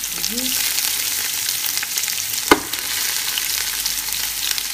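Meat pieces sizzling as they fry in olive oil with onions and peppers in a large pot, a steady hiss, with one sharp knock about two and a half seconds in.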